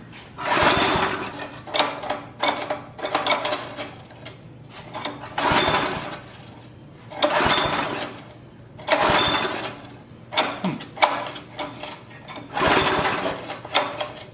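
Briggs & Stratton 5 hp flathead single-cylinder engine being pull-started over and over on carb cleaner, choke off. It cranks over with a rattling surge on each pull of the recoil starter, about every two seconds, without settling into a steady run.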